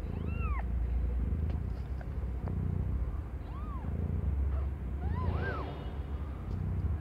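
Newborn kittens mewing in short, thin squeaks that rise and fall in pitch, about four times, over the mother cat's steady low purring.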